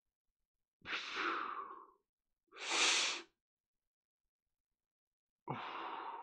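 A man breathing deeply as an exercise: a long inhale, then a short, louder blow out through the mouth, then another deep breath near the end.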